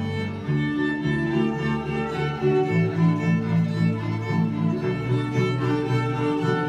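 Electric violin bowed in a slow melody of held notes, with low bass notes sounding underneath.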